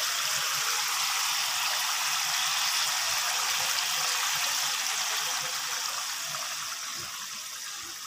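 Onion and tomato masala sizzling in oil in a non-stick wok, a steady hiss that grows gradually quieter over the last few seconds.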